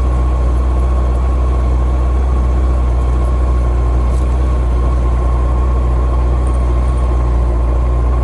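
Motorcycle engine idling steadily, with a constant deep hum and a faint steady whine above it and no revving.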